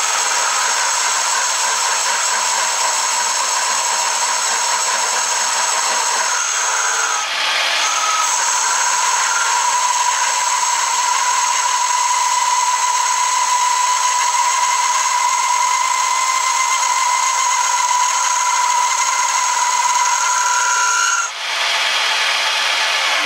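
Metal lathe boring out the inside of a centrifugally cast aluminium billet with a boring bar: a steady cutting noise with a high whine. It breaks briefly about seven seconds in and again near the end.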